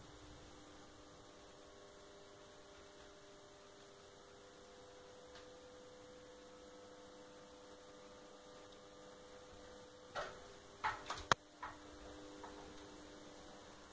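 Faint steady electrical hum made of a few held low tones. About ten seconds in comes a short cluster of sharp clicks and knocks, one much sharper than the rest.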